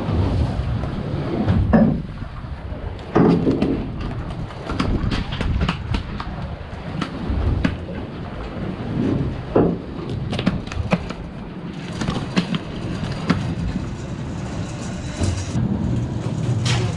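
Knocks, clicks and thumps of fish being unhooked and dropped into a plastic esky (fish cooler), scattered over a steady low rumble.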